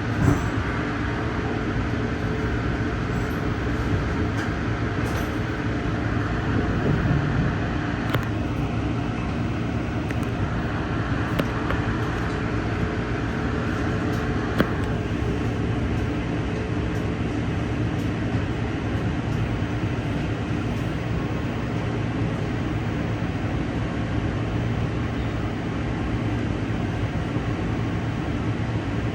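Steady running noise of an Amtrak passenger train underway, heard from aboard: wheels on the rails and a low rumble, with a few sharp clicks along the way.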